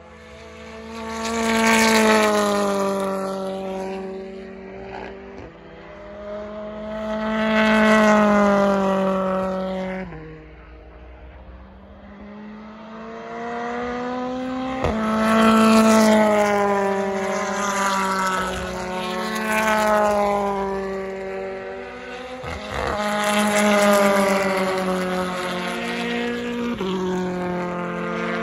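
BTCC touring cars' turbocharged 2-litre four-cylinder engines at full throttle as several cars pass one after another, in about five loud swells. Each engine note climbs and steps in pitch at gear changes, with a couple of sharp exhaust cracks.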